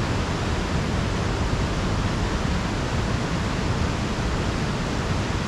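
Steady outdoor rushing noise with a low rumble underneath, even throughout with no distinct events.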